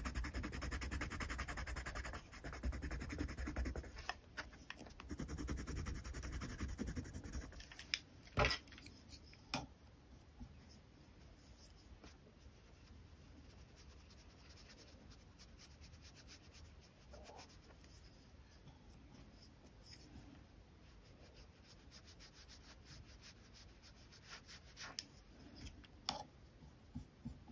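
Watercolour pencil scratching back and forth on textured paper in quick shading strokes, stopping after about eight seconds, followed by two sharp clicks.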